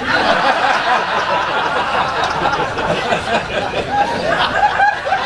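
Audience laughing: many voices laughing and chuckling together in a large room, holding at an even level.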